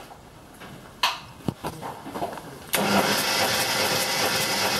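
Hyundai G4EE 1.4-litre 16-valve four-cylinder engine being turned over by its starter for a compression test on the first cylinder: after a couple of light clicks, a steady cranking whir starts about halfway through and keeps going.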